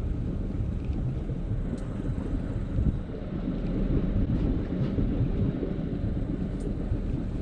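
Wind buffeting the microphone: a steady low rumble, with a few faint ticks.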